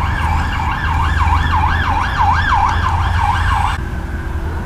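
A siren wailing up and down quickly, about three rises and falls a second, cutting off abruptly near the end.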